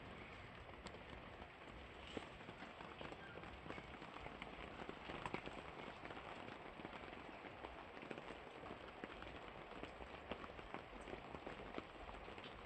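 Rain falling: a faint, steady hiss dotted with many small, irregular drop ticks.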